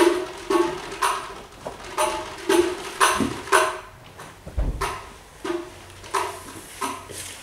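Acoustic guitar strummed in sharp, rhythmic chords, about two strokes a second, as live dance accompaniment.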